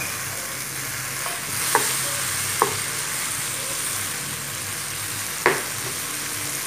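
Shrimp sizzling in hot olive oil in a frying pan, the sizzle growing stronger about a second and a half in. A wooden spoon stirs them, knocking against the pan three times.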